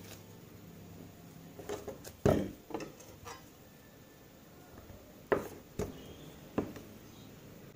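A few short, sharp knocks and taps as a knife cuts down through a lump of flour-tortilla dough and strikes the tabletop. There is a loud knock about two seconds in, and three more spaced taps later on.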